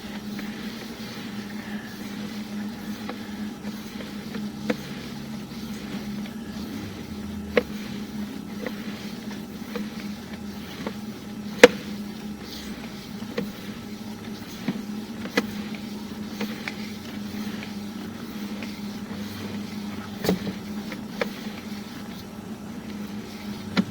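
Sewer inspection camera rig at work: a steady low hum, with a dozen or so sharp clicks and ticks at irregular intervals, the loudest about halfway through.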